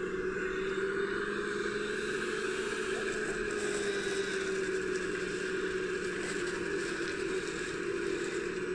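Electric drive motors and gearing of a 3D-printed RC Volvo EC550EL excavator model, whining steadily as the upper body swings round and the boom lowers the bucket into gravel. The pitch wavers slightly with the load.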